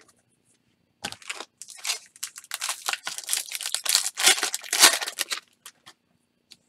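A foil wrapper of a 2018 Topps Chrome baseball card pack being torn open and crinkled by hand. The crackling tear starts about a second in and runs for about four seconds before stopping.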